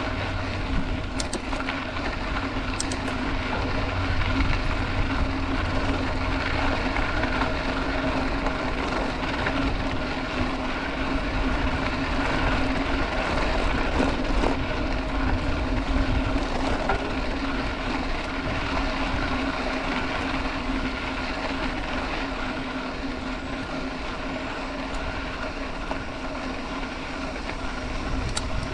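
Mountain bike rolling along a dirt road: a steady rumble of tyres and wind on the microphone, with a steady hum and a couple of faint clicks early in the ride.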